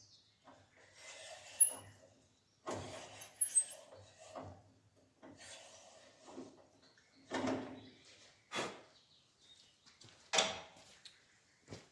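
Hand-tool work on metal: a series of short, irregular scraping strokes with a few sharp clicks, the loudest click about ten seconds in.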